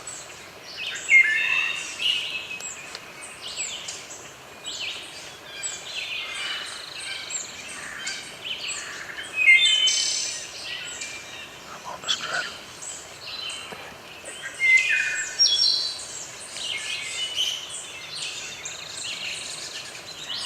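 Several songbirds singing and chirping over each other: overlapping short song phrases and chirps, a few of them louder and closer.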